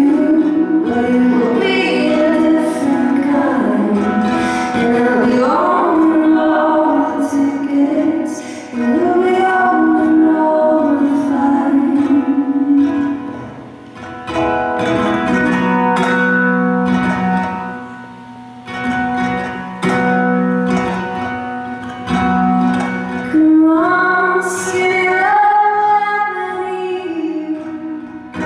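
Women's voices singing together in harmony over a strummed ukulele, sung in phrases with brief pauses between them.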